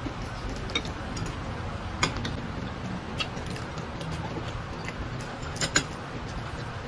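A few short, sharp clicks as fingers pick flesh off a fish on a ceramic plate, over a steady low hum. The loudest is a quick double click about three-quarters of the way through.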